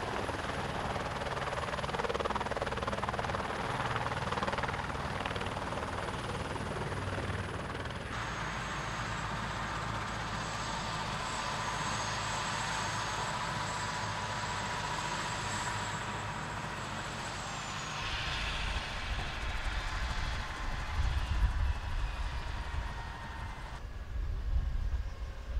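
Single-engine rescue helicopter running with its rotor turning: steady rotor noise under a high turbine whine. Past the middle the whine drops in pitch, and a heavier low rumble with uneven loudness takes over near the end.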